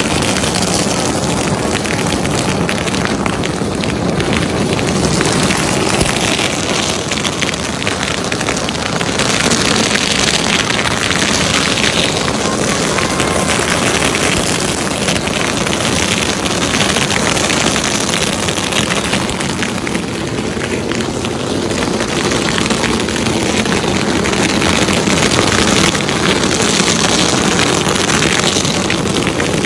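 Long string of firecrackers going off, a dense, continuous stream of rapid crackling pops without a break.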